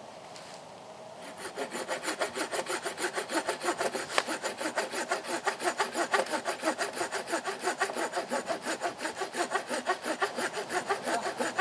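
Hand saw cutting through a small log, in quick, even back-and-forth strokes that start about a second in and stop near the end.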